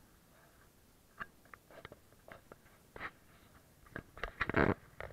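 Handling noise from a small camera carried against clothing: irregular rustles and clicks that grow busier toward the end, with the loudest scrape about four and a half seconds in.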